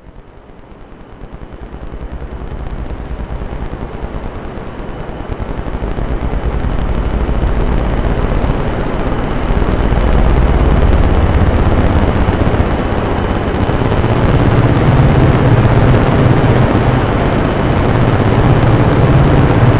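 Noise from a Bugbrand modular synthesizer run through an Electro-Harmonix Memory Man Hazarai delay: a dense, crackling, rumbling wall of noise that fades in from silence and swells over about ten seconds, then holds loud. A deep low hum grows stronger near the end.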